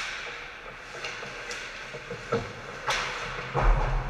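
Ice hockey play close to the net: sharp clacks of sticks and puck on the ice, with the hiss of skate blades scraping. A low thump comes about three and a half seconds in as a player skates right past.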